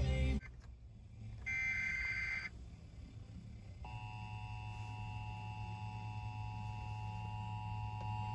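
Emergency Alert System broadcast tones: a one-second burst of SAME header data tones, then about a second and a half later the steady two-tone EAS attention signal starts and holds, over a low hum.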